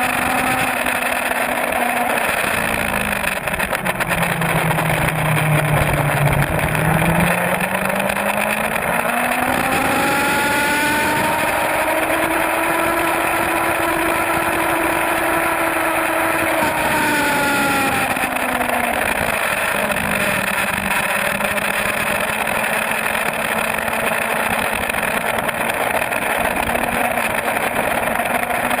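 Sport-bike inline-four engine running at track speed, heard from the onboard camera under heavy wind roar. The engine note drops low for a few seconds, climbs and holds high, falls again, then starts rising near the end.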